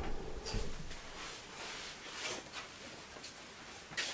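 Handling noise of a camera being repositioned: faint rustling with a few soft knocks, and a sharper click near the end.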